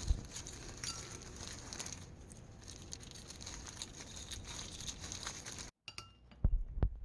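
Light rustling and small clinks of food containers and packaging being handled, then a cut, followed by a few louder knocks.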